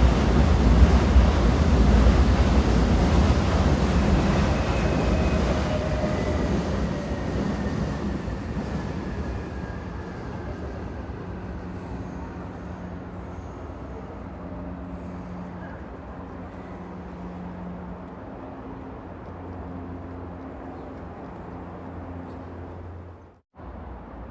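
Train rumbling loudly, then fading away over about ten seconds, with a faint falling squeal partway through. A quieter steady low hum is left, and the sound cuts out for a moment near the end.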